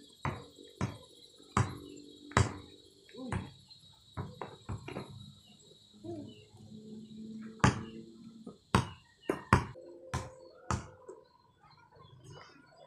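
A basketball bouncing on an asphalt road, giving irregular sharp thuds as it is dribbled and shot. Insects keep up a steady high trill underneath, which stops about ten seconds in.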